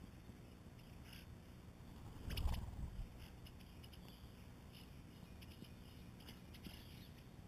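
Faint, scattered clicks of birds pecking at mealworms in a feeder bowl. About two and a half seconds in there is a brief louder thump with a rustle.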